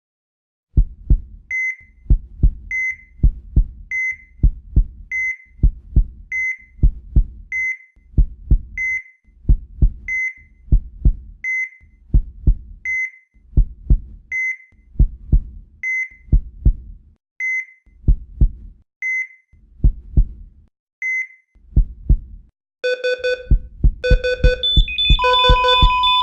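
Heart monitor sound effect: a low double-thump heartbeat with a short high beep on each beat, about one every one and a half seconds and slowing slightly. Near the end the beats come fast under a multi-tone beeping alarm. Then a steady flatline tone starts, the monitor signalling that the heart has failed.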